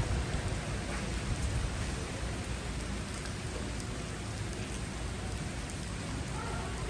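Steady rain falling on wet pavement, with a low rumble over the first second or two.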